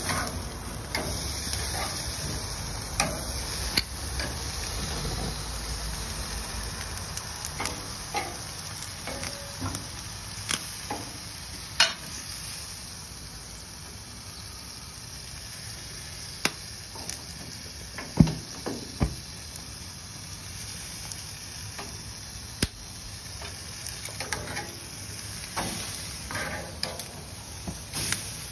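Food sizzling on a gas grill over open flames, a steady hiss with scattered sharp clicks and knocks; the loudest knock comes about two-thirds of the way through.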